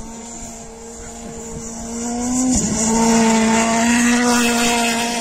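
Ford rally car's engine running hard at steady high revs as the car slides across a snowy stage, growing louder as it approaches, with a brief break in the engine note about halfway through.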